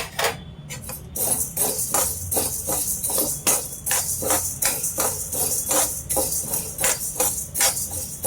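Toor dal and whole spices being dry-roasted and stirred in a pan: even stirring strokes, about two or three a second, with the dry grains rattling and scraping against the pan.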